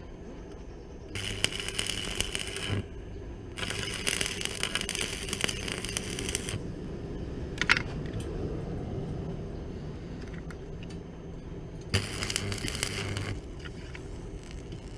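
Arc welder striking and running an arc three times: a crackling sizzle with a low electrical hum, lasting about a second and a half, then about three seconds, then near the end about a second and a half again.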